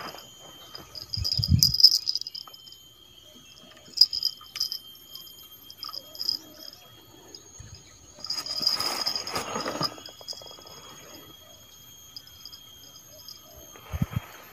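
Insects calling in steady high tones with bouts of high chirping, broken by rustling and knocks: a thump with rustling about a second in, a longer rustle around eight to ten seconds in, and another thump near the end.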